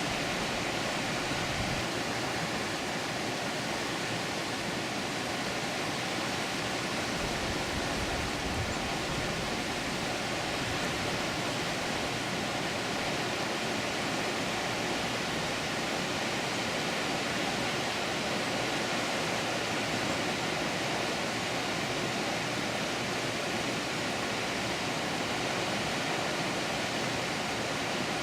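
Water pouring over a dam: a steady, even rush of falling water with no breaks.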